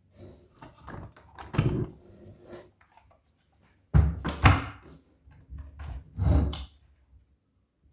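Irregular handling knocks and thumps with short rustles, as of a box and toys being handled, the loudest thumps coming about four and four and a half seconds in and again near six and a half seconds.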